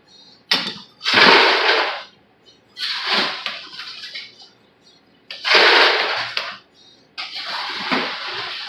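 Long 270 mm tuna knife drawn in repeated strokes through a bluefin tuna's flesh along the backbone, each stroke a hissing rasp of about a second, about five in all with short pauses between them.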